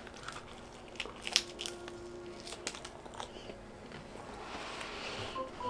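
Bites and chewing of a crispy piece of fried pizza crust, with several sharp crunches in the first three seconds.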